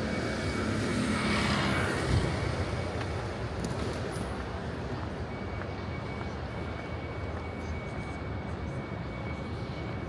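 Airplane passing overhead: a broad rushing roar that swells in the first couple of seconds, then fades into steady outdoor background hum.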